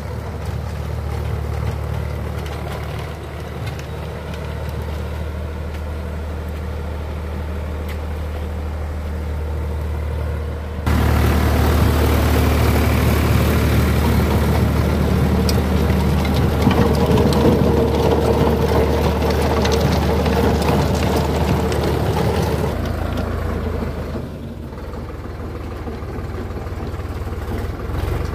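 Sonalika DI 47 RX Sikander 4WD tractor's diesel engine running steadily under load as it pulls a 6-foot Sonalika rotavator through dry, cloddy soil. The sound turns abruptly louder and noisier about eleven seconds in and drops back about twelve seconds later.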